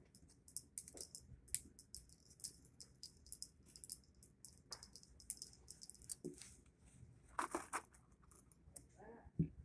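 Faint, irregular metallic clicks and clinks of small .22 LR cartridges and a revolver being handled by hand, with a few sharper ticks among them.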